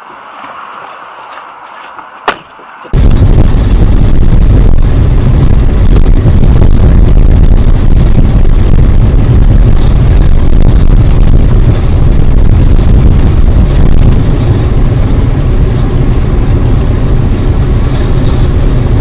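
Loud, steady vehicle rumble, heaviest in the low end, cutting in abruptly about three seconds in. Before it there is a quieter stretch with one sharp click.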